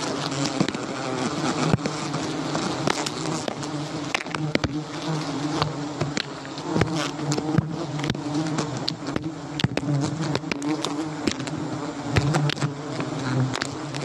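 A large wild colony of giant honeybees (Apis dorsata) swarming around their open comb: a dense, steady buzzing hum from many wings, with frequent short sharp ticks mixed in.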